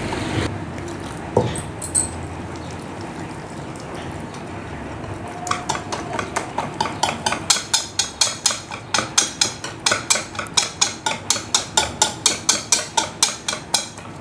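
Hand wire whisk beating a thin flour-and-egg batter in a bowl to break up the lumps: soft wet stirring at first, then from about halfway a steady, quick clicking of the whisk against the bowl, about three strokes a second.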